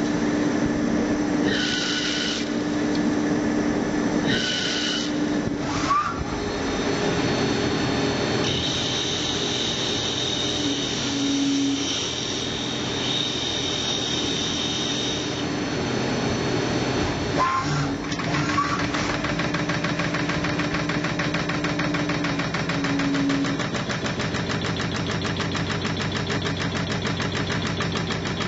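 CNC lathe machining an aluminium sprocket blank: the spindle runs with a steady hum while the tools cut, with high whining tones that come and go. There are short repeated bursts in the first few seconds, and a fast, even rattle takes over about two-thirds of the way through.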